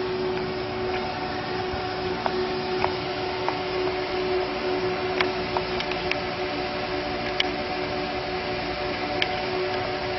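A small machine running with a steady hum at a constant pitch, with faint irregular clicks now and then.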